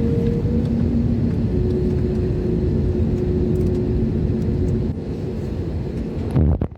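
Airliner engine noise heard inside the cabin: a loud, steady rumble with a few steady whining tones. One tone stops about five seconds in, and the sound drops off sharply at the very end.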